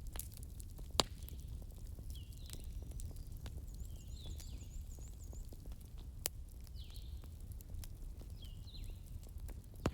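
Wood fire crackling in a fireplace: scattered small ticks over a low steady rumble, with sharp pops about a second in, about six seconds in and right at the end. Faint high chirps repeat every second or two behind it.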